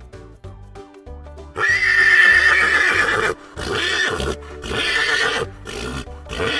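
Horse neighing: one long whinny starts about one and a half seconds in, followed by several shorter neighs, over background music.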